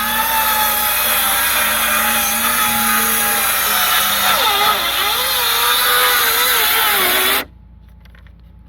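Hilti 6-1/2-inch cordless circular saw ripping a knotty 2x10 lengthwise: a loud, steady motor whine with blade noise. Its pitch wavers and sags under load in the second half, then the sound stops abruptly about seven seconds in.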